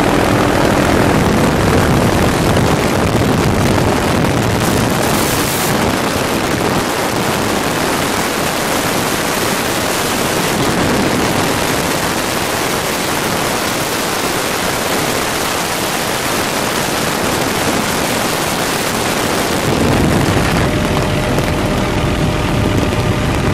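Helicopter in flight with the doors off: loud, steady wind rush through the open door over the helicopter's drone. The low rotor and engine drone is stronger at the start, thins under the wind through the middle, and comes back strongly near the end.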